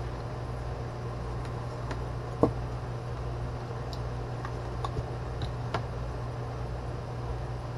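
A steady low hum with a few light clicks and taps over it, the sharpest about two and a half seconds in and two fainter ones near the five-to-six-second mark.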